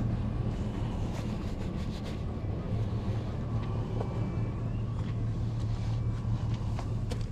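A steady low mechanical hum, like an idling engine, with a few faint clicks and taps over it.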